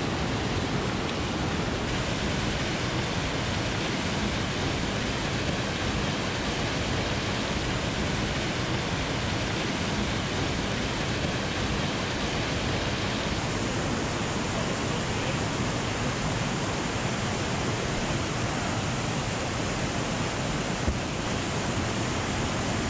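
White water of a mountain stream and waterfall rushing over boulders: a steady, even rush of water noise, with one brief click near the end.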